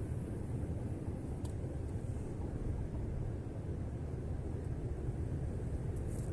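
Steady low rumbling outdoor background noise, with a few faint, brief high ticks.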